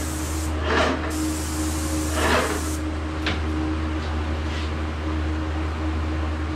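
Airless paint sprayer with a 310 tip hissing as it sprays shellac primer, stopping a little under three seconds in, followed by a single click. Underneath, a steady low hum from the exhaust fans.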